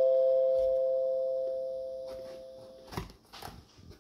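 The fading tail of a two-note ding-dong chime: two steady tones dying away slowly and stopping together about three seconds in, followed by a faint knock and light handling clicks.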